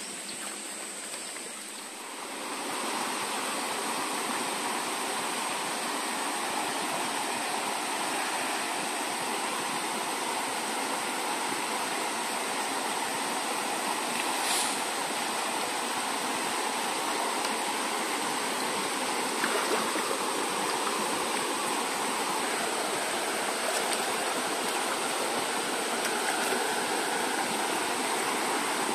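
Steady rushing of water, swelling up about two seconds in and then holding even. A thin high steady whine sits above it.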